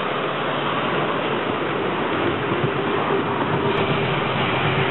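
Ride-on miniature railway train with passenger cars passing close by, its wheels rolling on the rails in a steady rumbling noise with a steady hum running under it.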